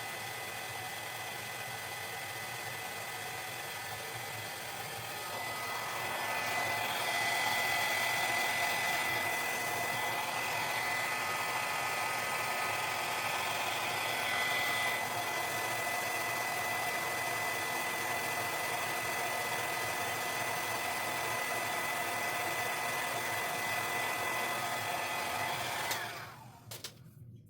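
Handheld electric hot-air blower running steadily, a rush of air with a thin high whine over it, louder from about six seconds in, then switched off near the end.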